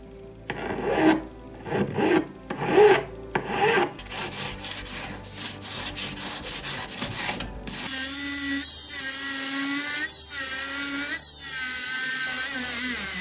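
Flat hand file rasping on a silver ring's setting: a few slow separate strokes, then rapid back-and-forth filing. About eight seconds in, a rotary tool with an abrasive wheel takes over on the silver, a steady high whine with a few brief dips.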